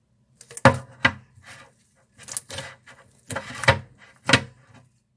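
Hands working a thick toffee slime, a run of sharp sticky clicks and pops, about five loud ones, with softer crackling between them.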